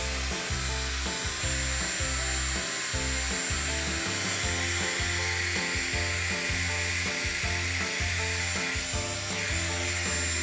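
A handheld electric heat gun running steadily, a hiss of blown air with a thin high whine, as it heats the end of a PVC pipe to soften it. Background music with a steady bass line plays under it.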